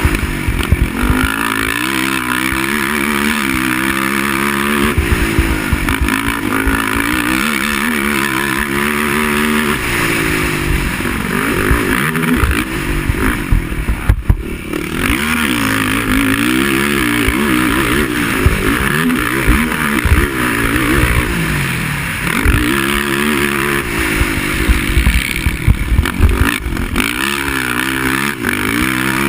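Racing quad (ATV) engine revving up and down over and over, its pitch rising and falling with the throttle, with frequent sharp knocks and a brief drop in sound about halfway through.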